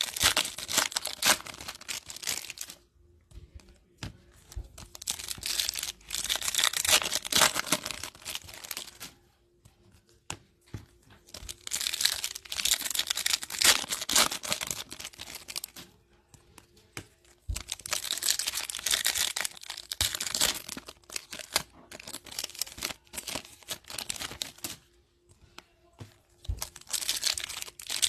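Foil wrappers of Topps Chrome baseball card packs being torn open and crinkled in the hands, in bursts of a few seconds with short quiet gaps between.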